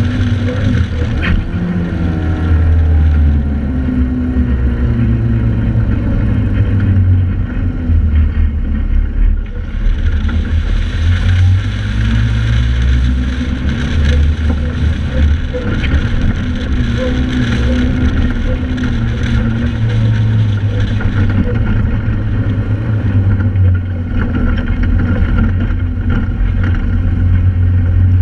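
Joyner 1100 Sand Viper sand rail's engine running under load as it drives over sand dunes, heard from on board, its revs rising and falling the whole way.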